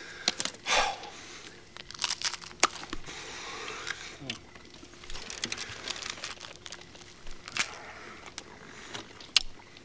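Roasted bat wing being bitten and chewed: a string of short, crisp crunches and crackles at irregular intervals.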